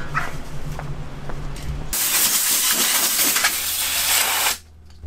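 Compressed-air blow gun hissing loudly as it blasts the papery skins off a peeled onion. The blast starts suddenly about two seconds in, holds steady for about two and a half seconds, and cuts off abruptly.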